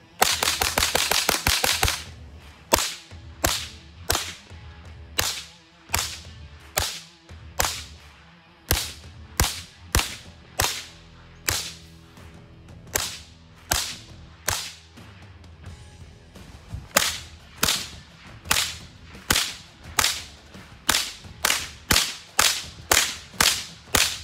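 GSG 522 semi-automatic .22LR rifle firing: a fast string of shots in the first two seconds, then single shots at a steady pace. The shots quicken toward the end, with a pause of about a second and a half around two-thirds of the way through.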